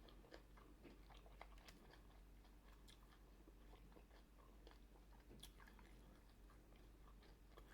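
Faint chewing of food, heard as soft, scattered mouth clicks.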